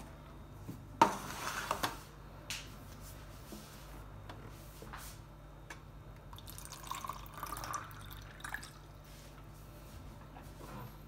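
A sharp metallic clack about a second in as the aluminium funnel filter basket of a moka pot is handled. Then water is poured into a measuring cup for about a second and a half.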